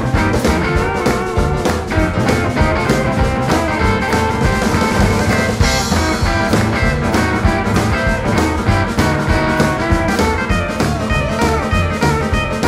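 Blues band playing an instrumental break with no singing: electric guitar over upright bass, drum kit and keyboard, with a cymbal crash about six seconds in.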